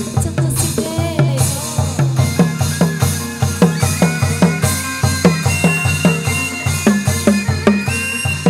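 Chầu văn ritual music played by the ensemble without singing: a steady, quick drum beat under a plucked, pitched melody.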